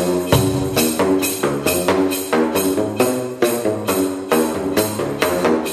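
Drain-pipe drum instrument slapped with flip-flops, playing a tune in quick pitched strikes of about four a second. It starts abruptly.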